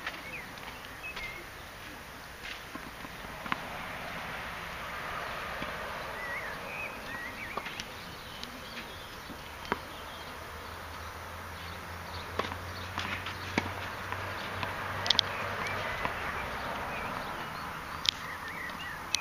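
Tennis rally on a clay court: sharp, irregularly spaced knocks of a tennis ball struck by rackets and bouncing, the loudest near the end, over faint bird chirps.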